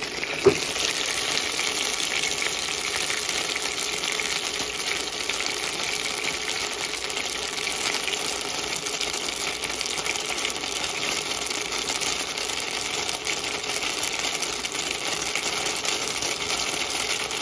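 Gyoza sizzling steadily in bubbling oil and water in a frying pan on an induction cooker, the lid off. One sharp clack about half a second in as the pan lid is set down.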